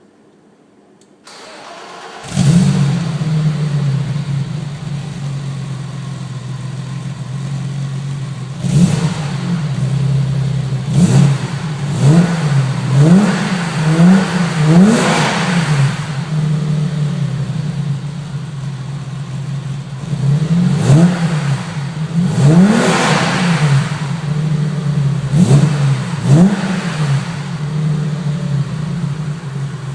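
BMW E30 exhaust: the engine starts about two seconds in and settles to a steady idle, then is blipped in quick revs, about six in a row, then a pause at idle, then about four more.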